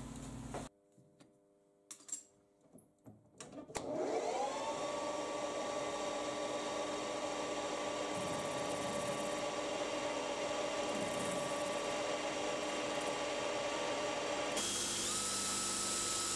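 Lathe's electric motor starting up about four seconds in, its whine rising quickly to a steady pitch and running on while a small cast-iron collar is turned. A few faint clicks come before it, and near the end it cuts to a similar steady machine whine at another pitch.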